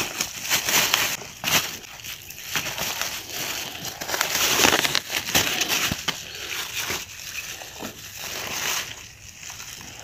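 Thin clear plastic bag crinkling and rustling in irregular spells as ridge gourds are handled and pushed into it.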